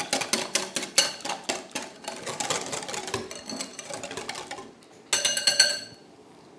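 Wire balloon whisk beating a runny sour cream, cream, egg and sugar mix in a glass bowl: a fast, even clicking of the wires against the glass, stopping about four and a half seconds in. Just after that comes a short ringing clink of the whisk against the glass bowl.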